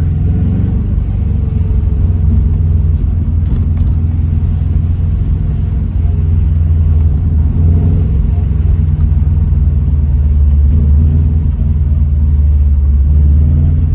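Subaru Impreza GC8 on the move, heard from inside the cabin: a steady low drone of its flat-four engine and road noise.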